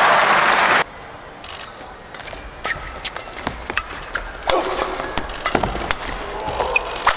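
Loud crowd noise with a shout, cut off abruptly under a second in. Then a badminton rally: rackets hitting the shuttlecock in quick, sharp cracks, a few per second.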